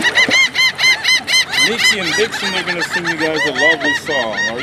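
Bottlenose dolphins calling above the water: a rapid run of squeaky rise-and-fall chirps, about four a second, then lower wavering calls.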